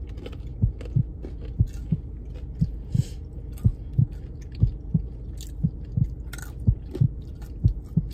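People chewing crunchy dry roasted nuts (hazelnuts and other mixed nuts) with their mouths close to the microphone: a steady rhythm of dull thuds about twice a second with faint crunching.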